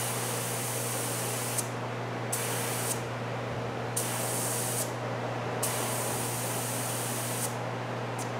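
Air hissing out of a car tire through the valve stem in about four bursts as the purge button on a tire inflator gauge is pressed and released, bleeding the pressure down. A steady low hum runs underneath.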